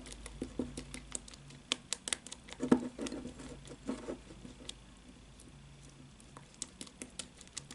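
A small spatula stirring a thick egg-white paste in a glass bowl: irregular light clicks and taps against the glass with soft scraping.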